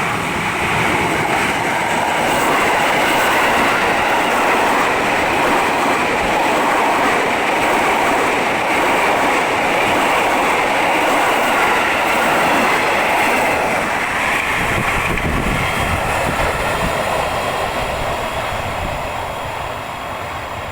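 KRL Commuter Line electric commuter train running past, a loud steady rail noise that fades away over the last few seconds.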